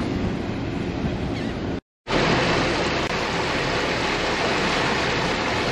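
Steady rushing noise of the 1999 Carver 504 motor yacht underway: engine rumble mixed with wind and churning water. It cuts out completely for a moment about two seconds in, then comes back as a brighter, hissier rush.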